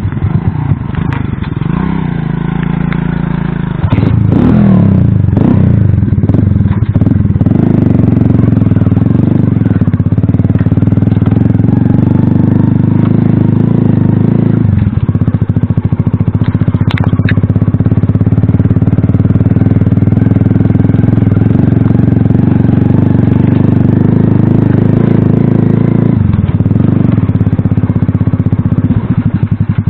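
Alpha moped-style motorcycle's small single-cylinder four-stroke engine running under way, loud and steady. The revs rise about four seconds in, then the engine note drops and picks up again twice, once mid-way and once near the end.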